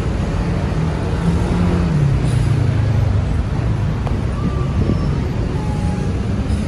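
Heavy city road traffic: engines of passing vehicles running close by in a steady low rumble, one engine's note dropping in pitch about two seconds in.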